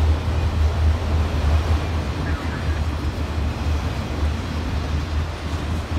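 Autorack freight cars of a manifest train rolling past at trackside: a steady rumble of steel wheels on the rails, heaviest in the low end.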